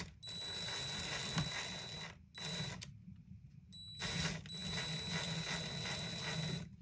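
A small motor-driven tool running twice, about two seconds and then about three seconds, with a thin steady high whine over a rattling hiss.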